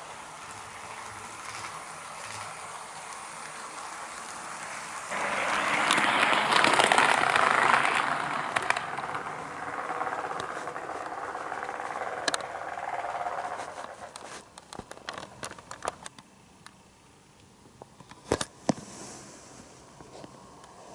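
HO-scale model train, an EF81 electric locomotive hauling Koki 50000 flat wagons, running on sectional track. Its wheels and motor make a steady rolling noise that grows loud about five seconds in as it passes close, then fades. Near the end it quietens to a scatter of small clicks.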